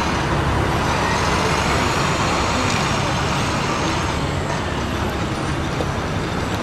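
A heavy dump truck's diesel engine and tyres passing at slow speed, then passenger cars rolling by behind it; steady road traffic noise.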